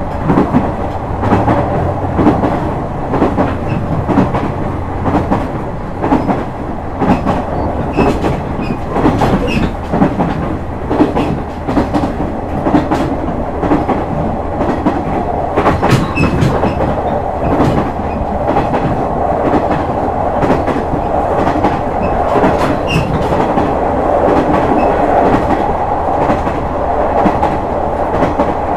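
Onboard running sound of a KiHa 126 series diesel railcar at speed: a steady rumble of the diesel engine and wheels on the rails, with repeated clicks as the wheels pass over rail joints.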